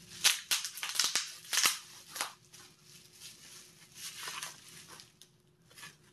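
Bubble wrap crinkling and crackling in the hands as a ceramic ornament is pulled out of it: a cluster of sharp crackles over the first two seconds, then quieter rustling.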